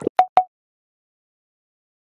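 Two short pitched pop sound effects in quick succession near the start, the last of an animated intro's sound effects; otherwise silence.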